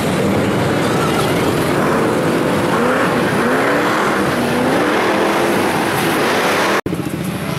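Lifted pickup truck engine running under load as it drives through mud and water, its pitch rising and falling with the throttle over a steady rush of noise.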